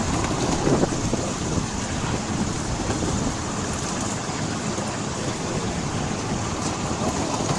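Miniature railway train running along the track: a steady rumbling noise of the ride with no clear engine tone or distinct rail-joint clicks.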